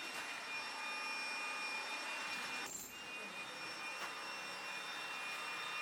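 Hilti TE 1000 AVR electric demolition hammer running steadily while breaking a concrete slab: an even mechanical noise with a few thin high steady tones, and a brief surge of noise just under halfway through.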